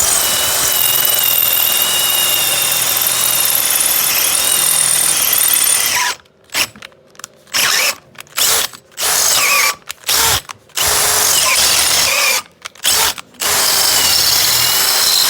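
Power drill with a long 3/8-inch bit boring through an aluminium winch drum. It runs steadily for about six seconds, then in a series of short on-off bursts, then steadily again near the end until the bit goes straight through.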